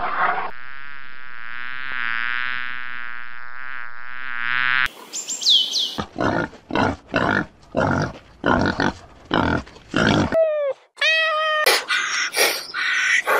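A steady, wavering buzzing drone, then a brief high falling squeal. Then comes a wild boar grunting in a rapid train of loud grunts, two or three a second, and it ends in a run of short falling chirps and calls.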